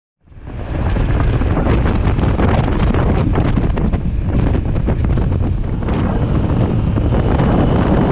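Loud wind rushing and buffeting over the microphone of a camera on a moving motorcycle. It fades in within the first second and then holds steady.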